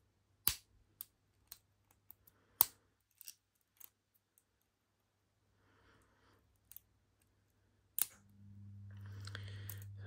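Lock pick and tension wrench clicking against the pin stack of a Smith & Lowe laminated padlock during single-pin picking: sharp, irregular metal clicks, about six in the first four seconds, then more near seven and eight seconds. Near the end a low steady hum with a rising hiss comes in.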